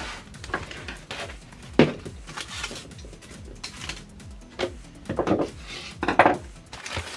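Scattered clicks, taps and scrapes of craft tools and a stiff papier-mâché head being handled, with sharper knocks about two, four and a half, and six seconds in.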